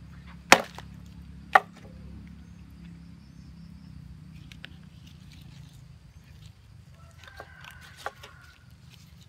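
Two sharp chops of a large knife striking a wooden board, about a second apart, followed later by a few lighter knife taps and clicks.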